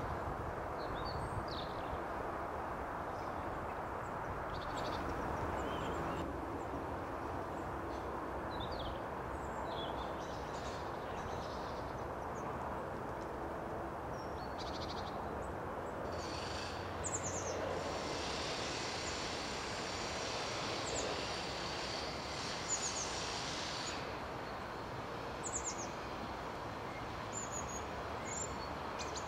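Short, high bird chirps scattered over a steady outdoor noise, with a spell of denser high chirping about two-thirds of the way through.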